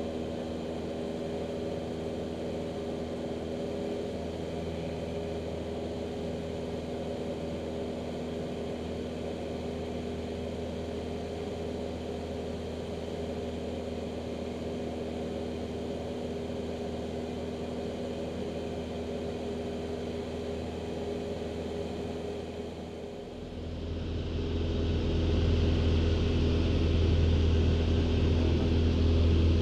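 Cockpit drone of a Van's RV light aircraft's piston engine and propeller in steady formation cruise. About 23 seconds in it dips briefly, then comes back louder with a heavier low rumble.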